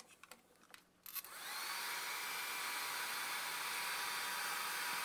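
A hair dryer switched on about a second in, its motor spinning up with a rising whine, then blowing steadily. A few faint clicks come before it.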